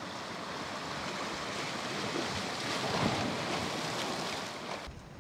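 Ocean surf washing onto the shore as a steady rush, swelling to a peak about three seconds in, then cutting off suddenly near the end.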